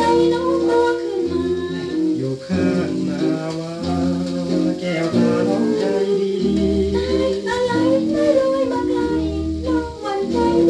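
Old Thai popular song played from a shellac record: a dance band with plucked strings and melodic lines carried by voice or instruments, over a pulsing bass.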